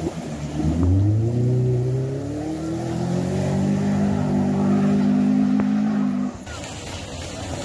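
A Mini hatchback's engine revs hard as the car accelerates through deep ford water. Its pitch climbs over the first two or three seconds, then holds high and steady until it cuts off abruptly about six seconds in. A rushing, splashing water hiss follows.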